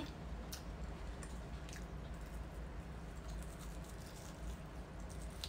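Faint chewing of a breadcrumb-coated baked chicken wing, with a few soft clicks, over a steady low background hum.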